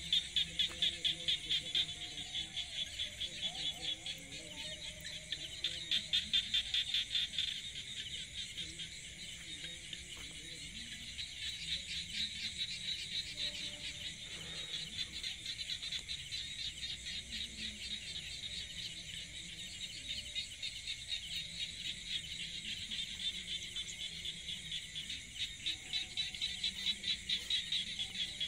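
A chorus of insects: a steady, high buzz pulsing several times a second, swelling louder a couple of times.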